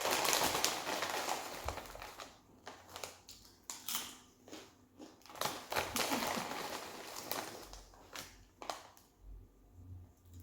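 Crackly rustling and crunching from handling and eating snack chips, in irregular spells with short pauses between.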